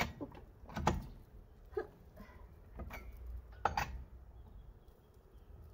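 Short clinks and knocks, about one a second, from hand work with metal parts at a car's wheel hub during a wheel change.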